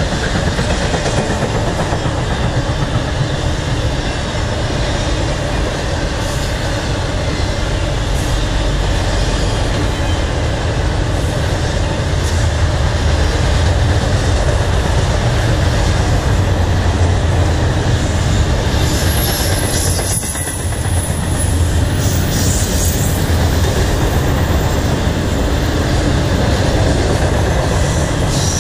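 Intermodal freight cars, double-stacked container well cars and trailer flatcars, rolling past: a loud, steady rumble and clatter of steel wheels on rail.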